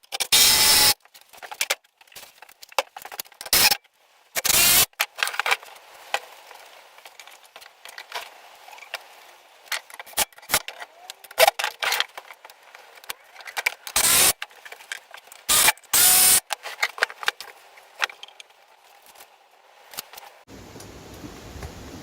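Irregular clicks, knocks and short scraping rustles of hands-on work with tools and materials, with several louder half-second scrapes. The background changes abruptly near the end.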